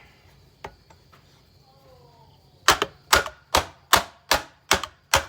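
A rapid run of sharp, hard blows striking an Oreck bagged vacuum cleaner, about two and a half a second, starting a little past halfway through. A faint click comes about a second in.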